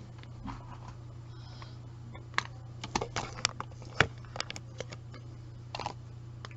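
A scattered run of light clicks and taps, clustered in the middle and again near the end, over a steady low hum.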